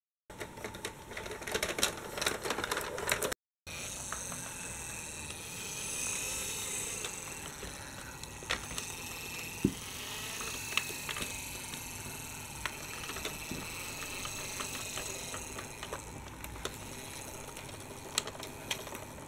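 Plastic toy trams and a toy train rolling, a dense clicking rattle for the first few seconds, then fainter scattered ticks over a steady hiss.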